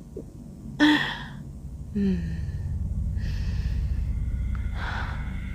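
A woman's breathy gasp about a second in, then a sigh with a falling voiced tone and slow drawn breaths, over a steady low rumbling drone that starts about two seconds in.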